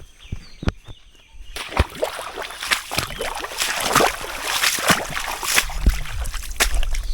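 Water splashing and sloshing in irregular strokes as someone wades through a river. The first second and a half is nearly quiet apart from a couple of clicks.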